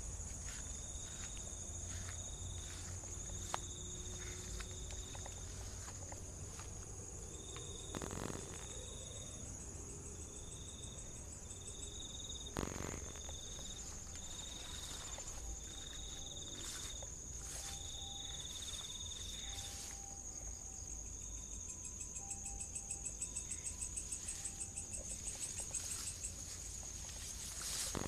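Night insects: one steady high-pitched drone throughout, with crickets chirping in repeated short trills over it and a faster pulsing trill setting in near the end. A few sharp knocks or steps are heard along the way.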